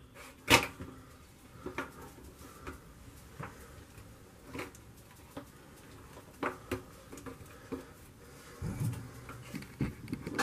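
A trim piece being pressed back into place on a vintage upright freezer's cabinet: scattered light clicks and taps, the loudest about half a second in, with a low knock of handling near the end.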